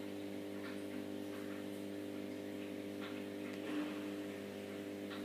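Steady electrical hum of the aquarium's filter pumps running, with a few faint brief sounds now and then.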